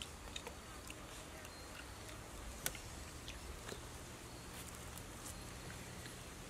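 Faint eating sounds: scattered wet smacks and clicks of someone chewing roasted chicken, over a low steady hum. One sharper click comes a little before the middle.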